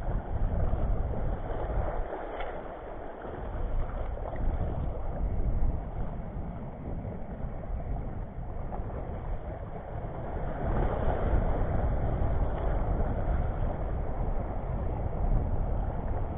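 Wind buffeting the microphone with a rumble that rises and falls, over small waves washing across shallow reef rocks.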